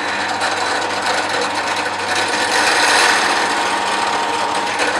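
Power drill running steadily with a countersink bit, cutting a cone-shaped countersink into a screw hole in wood.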